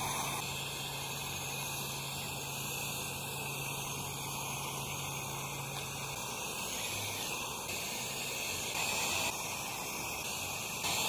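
Pressure washer wand spraying a chemical wash solution onto house siding: a steady hiss of spray, with a low steady hum under it that stops about six seconds in.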